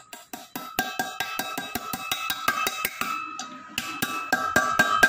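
Hammer rapidly striking a steel drift to drive a new wheel bearing into the scooter's rear hub, about four or five ringing metallic knocks a second.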